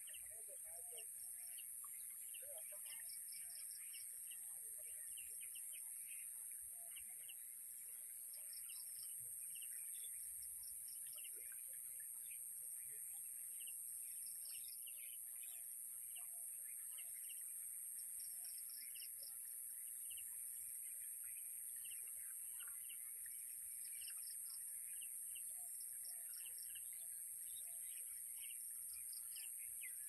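Small birds chirping and calling over and over, short notes scattered throughout, over a steady high-pitched hiss.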